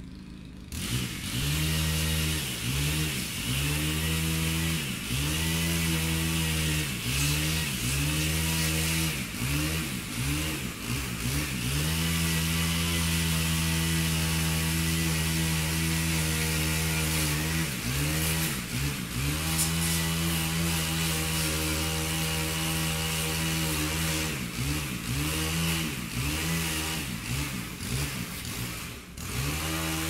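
Chainsaw running as it cuts branches. It comes in about a second in, and its pitch dips and recovers again and again, with a few longer steady stretches.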